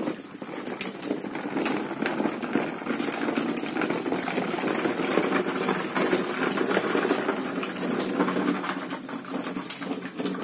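Plastic toy dump truck's wheels rolling over a hard dirt floor as it is pulled along on a string, a continuous clattering rattle thick with small clicks.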